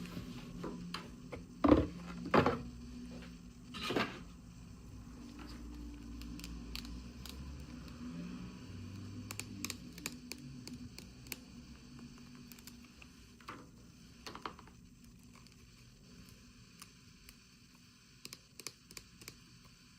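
Hands handling toy packaging and miniature plastic pieces: a few sharp clicks and knocks near the start, then scattered small ticks, taps and crinkles.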